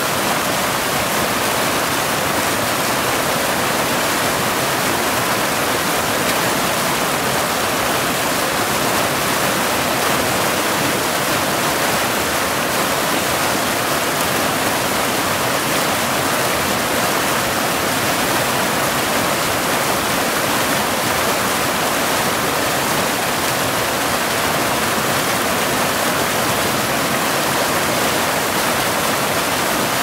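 Large waterfall: a loud, steady rush of falling water that does not change.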